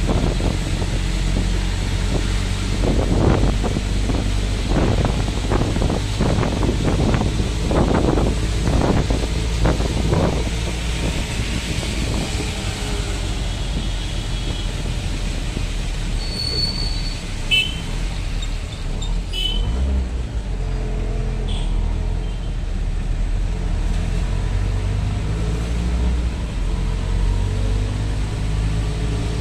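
Steady engine rumble and road noise heard from inside a moving vehicle, with surges of rushing noise over the first ten seconds or so.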